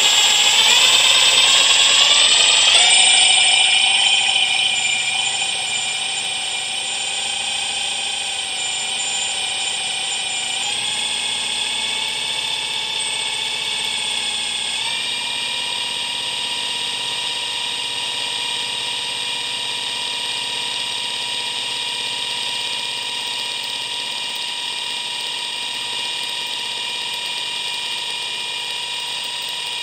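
Ferguson TE20 dynamo spun on the bench by an electric motor: a steady whine that rises in pitch over the first few seconds, then steps up in speed twice, about 11 and 15 seconds in.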